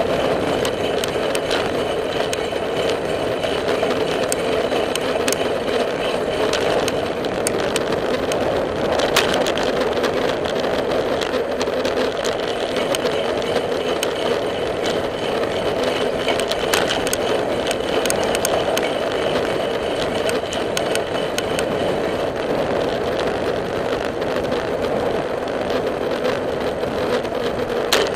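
A bicycle rolling along a paved path: a steady hum of tyre and road noise with scattered clicks and rattles, and a faint steady high tone.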